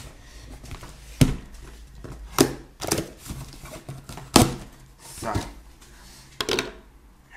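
Cardboard parcel being cut and torn open by hand with a knife: about six sharp knocks and tearing sounds, roughly a second apart.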